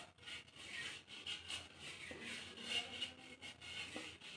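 A hand rubbing oil around the inside of an unglazed terracotta handi pot: a soft, irregular scraping of palm and fingers on the clay.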